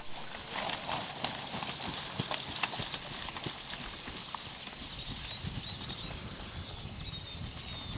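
Scattered light knocks and clicks at an irregular pace over a faint steady hiss, with a sharp click at the very start.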